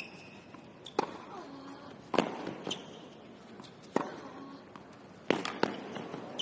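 Tennis rally: rackets striking the ball in turn, sharp pops every one to two seconds, with softer ball bounces between them.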